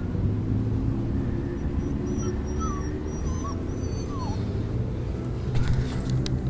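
Afghan hound puppy whimpering, a few short high whines in the middle, over a steady low rumble. A few knocks near the end.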